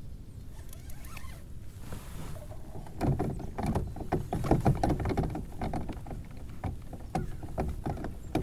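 Water splashing and irregular knocks against a kayak, getting busy about three seconds in, over a steady low rumble.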